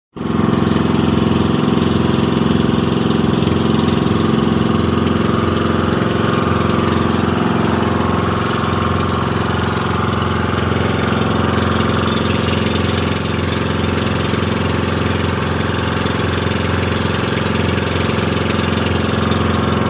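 Engine of a motorized outrigger boat (bangka) running steadily while underway, its pitch and level unchanging.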